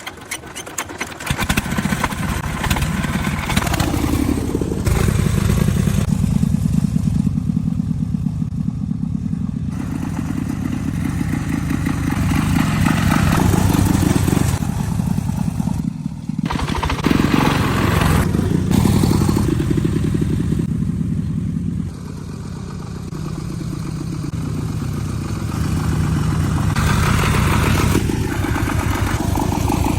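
Motor vehicle engines running, heard in a series of short clips cut together, with some rattling.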